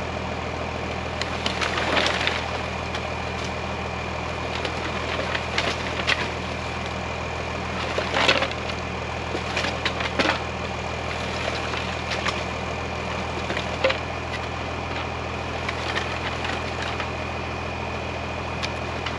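Scrap boards and wood debris clattering and knocking as they are pulled and fall from a raised dump bed, over the steady idle of the Oshkosh dump truck's Cummins 6BT diesel. The loudest clatters come about eight seconds in and again near ten.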